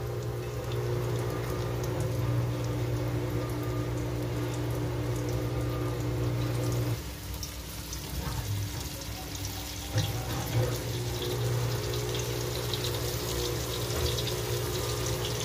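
Breaded fish fillets sizzling in hot frying oil, a dense crackle that grows as more fillets go into the pot. A steady low hum runs underneath and briefly thins out for a few seconds in the middle.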